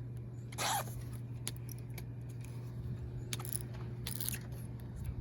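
Fishing reel giving short zipping bursts of line while a hooked smallmouth bass fights, the loudest about half a second in and three smaller ones later, over a steady low hum.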